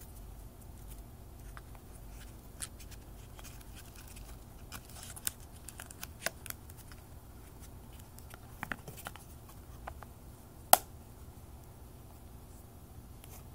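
Hands handling a cardboard presentation box and a plastic sleeve: scattered light rustles and clicks, with one sharp tap, the loudest, about eleven seconds in. A steady low hum runs underneath.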